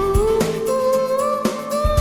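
Background music: a held, gently sliding melody over guitar and a steady drum beat.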